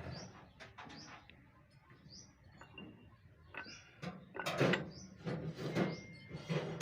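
Small birds chirping a few times, with a run of sharp knocks and clatter in the second half.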